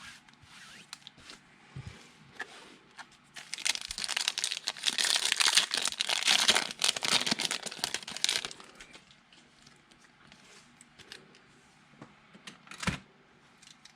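Plastic trading-card packaging being torn open and crinkled, in a dense crackly stretch from about three seconds in to about eight and a half seconds. Small handling clicks follow, with one sharp click near the end.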